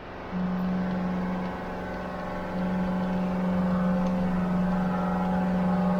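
Woodland Mills HM122 bandsaw mill running, its engine holding one steady note that gets louder about a third of a second in and again about two and a half seconds in.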